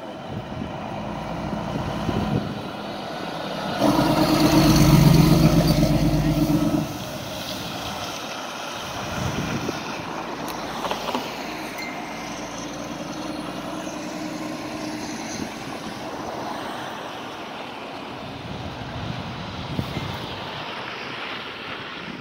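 Fire ladder truck driving past on the street, with engine and road noise. About four seconds in, a loud, steady, low-pitched blast of about three seconds from the truck cuts off sharply.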